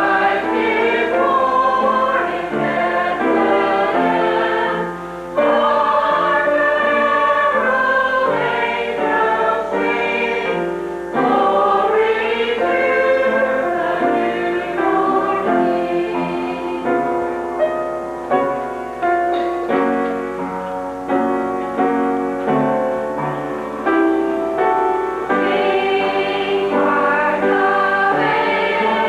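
A choir singing, many voices holding sustained notes together in changing chords.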